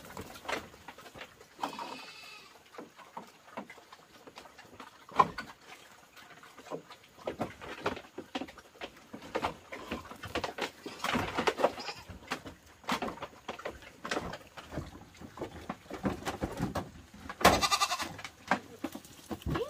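Animal calls: a short one about two seconds in and a loud one near the end, with scattered knocks and clicks in between.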